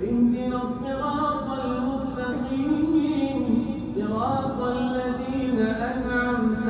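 A man's melodic Quran recitation: one voice chanting in long held notes with gliding rises and falls in pitch.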